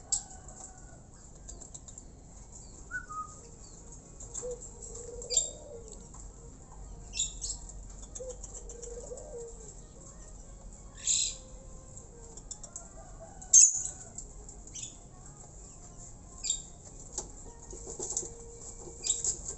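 A caged jalak nias fluttering its wings against the cage in short, sharp bursts every second or two, the loudest about two-thirds of the way through.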